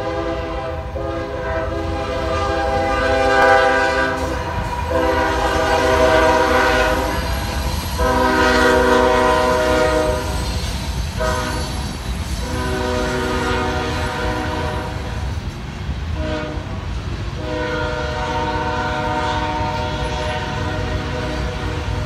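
Lead locomotive's multi-chime air horn on a Union Pacific freight train, a GE AC45CCTE GEVO, sounding a string of long blasts with a few short ones between, the pattern blown for grade crossings. The train's steady low rumble runs underneath.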